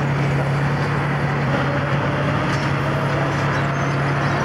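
Tamper P811S track renewal machine running with a steady, constant low drone and machinery noise as it works through the track, replacing wooden ties with concrete ties.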